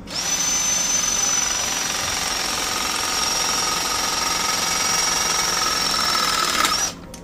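REMS cordless press tool running through a press cycle, closing a pressing ring around a large copper press fitting. It makes a steady high whine over a motor drone, the whine sagging slightly in pitch as the press works, and stops suddenly after about seven seconds.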